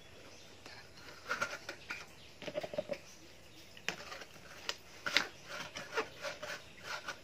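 A thin plastic soft-drink bottle being handled while dish-sponge pieces and cotton padding are pushed into it: irregular crackles and clicks of the plastic.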